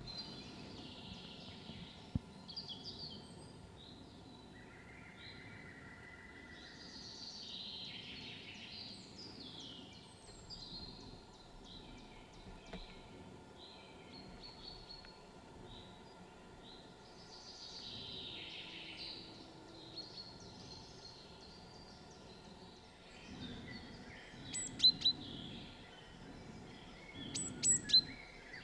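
Wild songbirds singing and calling over one another, many short phrases overlapping. Near the end come a few sharp, loud clicks.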